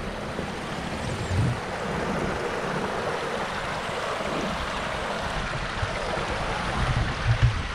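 River water running steadily over rocks, a constant rushing hiss, with a few low bumps on the microphone about a second and a half in and again near the end.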